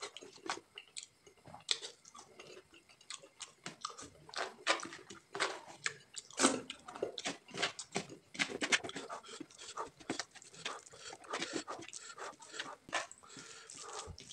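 Close-up wet chewing and lip smacking while eating rice and pumpkin curry by hand, with many irregular short smacks that grow denser and louder after the first few seconds.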